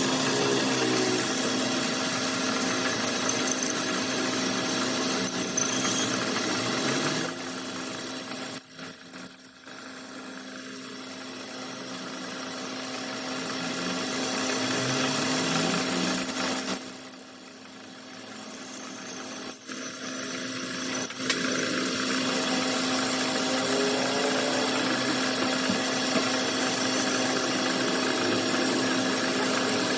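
Metal-working lathe running with a steady machine hum. It drops away about eight seconds in, winds back up, drops again around seventeen seconds, then comes back to full running.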